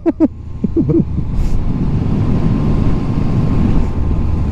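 Yamaha MT-09 motorcycle's three-cylinder engine running steadily on the road, a continuous low drone.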